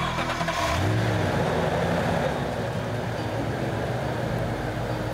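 A pickup truck's engine comes in suddenly and runs, rising in pitch about a second in and then holding steady under a rushing noise.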